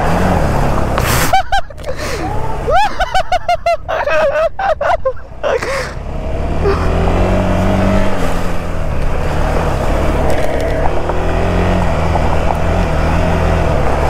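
Single-cylinder engine of a KTM 390 Adventure motorcycle running under load through a water crossing, rising and falling in pitch, with water splashing and spraying up around the bike. A choppy, warbling sound cuts in from about a second in until about six seconds in.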